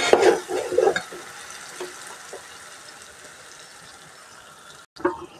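A metal spoon scraping and clattering against an aluminium cooking pot for about a second as ground green chilli paste is added to the chicken curry, then a steady faint hiss.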